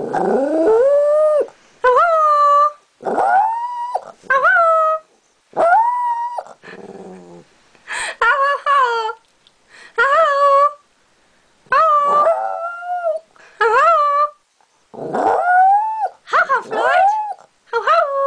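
Maltese dog 'singing': a string of about a dozen howling calls, each bending and rising in pitch, with short pauses between them.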